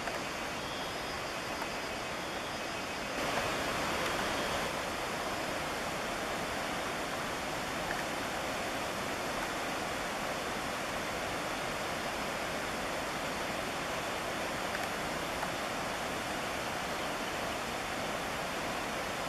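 Rushing stream water tumbling over rocks, a steady hiss that swells briefly about three seconds in.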